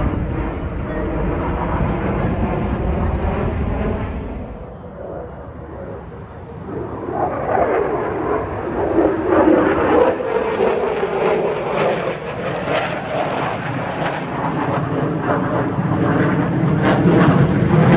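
Military jet aircraft flying past: loud jet noise that eases off a few seconds in, then builds again with a sliding whine, loudest near the end.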